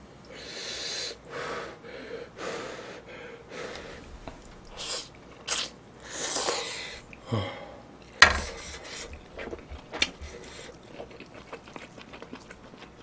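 A person eating spicy instant ramen: several long slurps and sharp, hissing breaths, with a few sharp clicks in between, the loudest a little past the middle.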